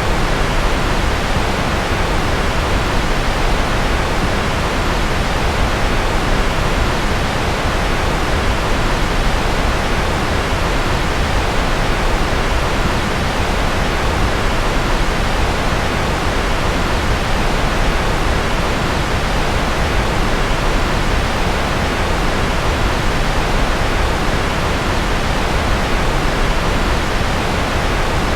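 Steady, unchanging rushing noise from a sleep noise track, heaviest in the low rumble and thinning toward the highs, with no events or changes.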